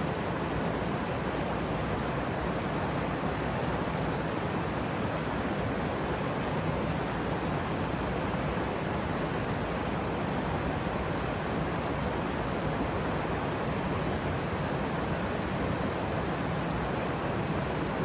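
Waterfall: a steady, unbroken rush of falling water, even throughout with no separate splashes.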